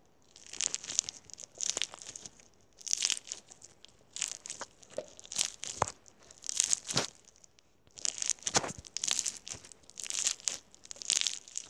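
Crunchy slime full of small pink beads being squeezed and pressed between the hands close to the microphone: repeated bursts of crackling and popping, roughly one a second, with a few sharper pops among them.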